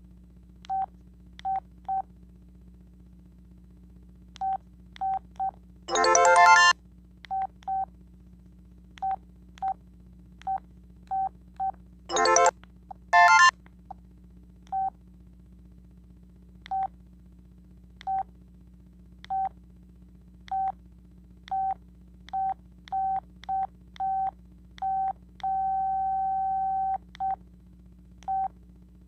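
Sanyo VI-2300 flip phone's keypad beeps: short, identical single-pitch key tones at irregular intervals as its buttons are pressed. A few brief, louder, fuller-toned sounds come from the phone about six seconds in and again around twelve to thirteen seconds in, and one beep is held for over a second near the end.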